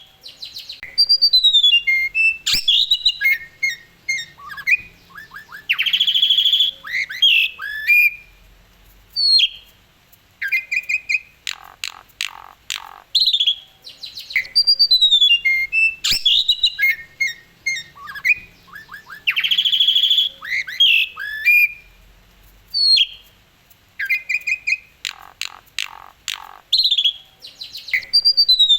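Asian pied starling (jalak suren) singing a varied, loud song of whistled glides, chirps, rapid stuttering notes and a harsh buzzy rasp, in phrases broken by short pauses. The same run of phrases comes round again about halfway through, as in a looped recording.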